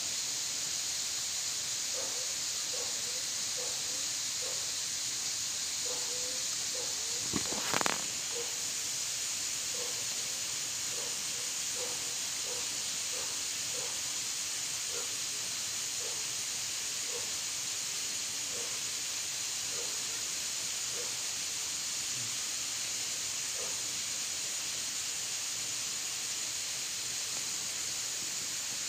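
Steady high-pitched drone of insects in tropical streamside vegetation, with a faint short call repeated about once a second and one brief bump about eight seconds in.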